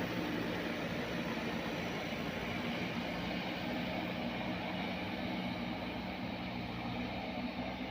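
Diesel engine of a JCB 3DX backhoe loader running steadily at a constant speed while it works the ground.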